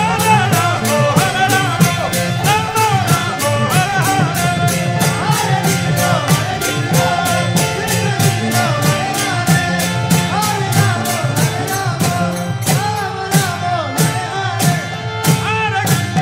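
Devotional kirtan: a group singing a chant led by one voice, over hand cymbals (karatalas) clashing on a fast, even beat of about four to five strokes a second.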